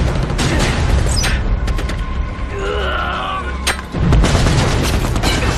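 Film battle soundtrack: a constant low rumble of gunfire and explosions with sharp rifle shots cracking throughout, a brief wavering shout near the middle, and a heavy explosion boom about four seconds in.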